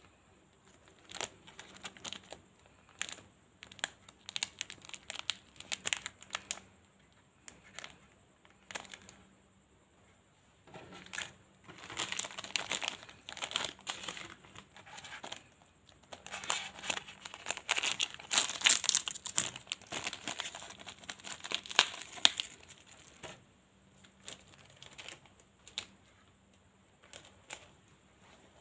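Plastic wrappers of Choki Choki chocolate paste packets crinkling as they are handled and torn open, in many short crackles with denser, louder rustling around twelve seconds in and again from about sixteen to twenty-three seconds.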